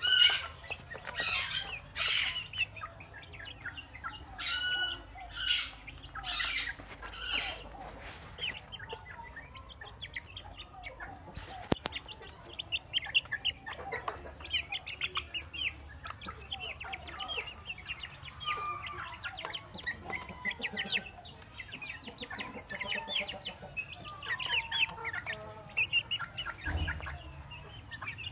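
Young chickens peeping and making short, high chirping calls with some lower trilling clucks as they feed. A run of loud, short scratchy noises comes in the first several seconds.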